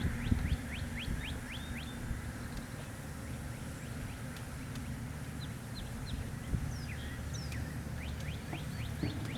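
A songbird singing in runs of quick chirps, one run near the start and another near the end, with single notes between. A low steady hum runs underneath.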